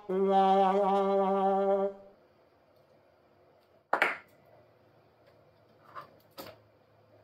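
The long final note of a descending 'sad trombone' brass sound effect, held for about two seconds. Then one sharp knock and two faint clicks of hands working on graphics cards inside a PC case.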